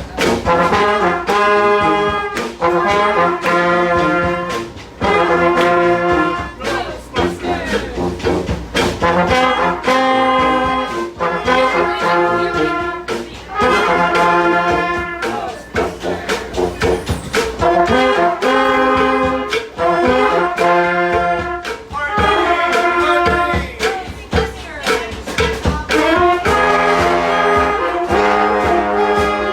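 A brass street band plays a tune, trombones and trumpets in repeated phrases over low held bass notes.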